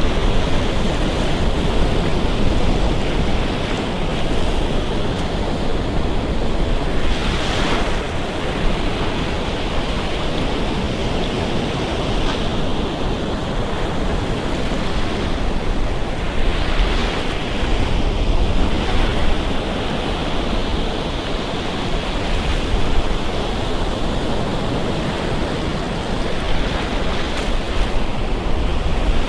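Surf on a Gulf Coast beach: waves breaking and washing up the sand in a steady rush that swells every few seconds as another wave breaks, with wind rumbling on the microphone.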